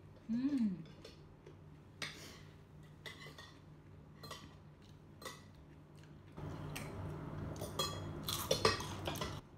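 Plates and dishes clinking and knocking lightly as raw vegetables are picked up from them, with a louder stretch of close clicking and crunching of eating over the last three seconds.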